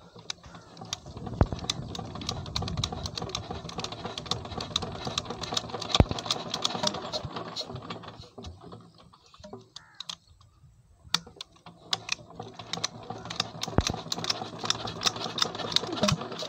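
SD 23 HP Peter-type stationary diesel engine clattering in two spells of about eight seconds each, with a short lull between, as it is being started.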